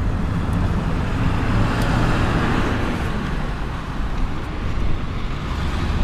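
Steady road noise of a moving van, with tyre hum and engine rumble heard from inside the cabin.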